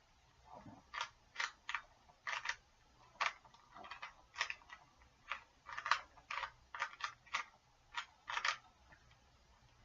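Plastic Rubik's Cube faces being turned by hand, a quick, irregular run of clicks that starts about a second in and stops near the end.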